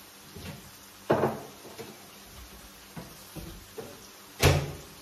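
Several sharp knocks and thuds of things being handled in a kitchen, typical of cupboard doors and kitchenware; the loudest come about a second in and near the end.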